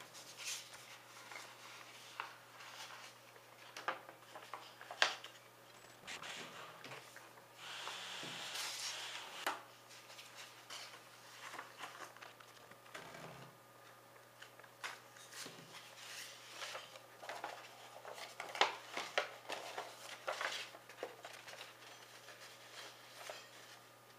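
A sheet of paper being handled and folded by hand: rustling, with sharp crackles as folds are pressed into creases, and a steadier rub lasting about two seconds, starting about seven and a half seconds in.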